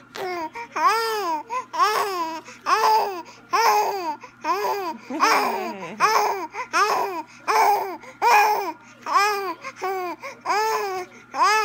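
A three-month-old baby boy cooing in a run of short, high calls that rise and fall in pitch, a little more than one a second.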